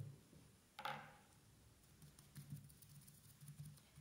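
Kitchen-type sponge dabbing tempera paint onto paper through a stencil: faint, irregular soft taps, with one sharper tap about a second in.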